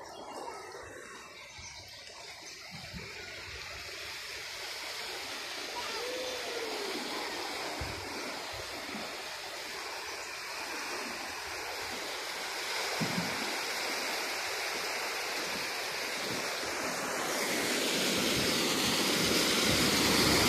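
Floodwater rushing and splashing as a pickup truck wades through it, pushing a bow wave. The wash grows steadily louder as the truck comes closer and gets brighter near the end.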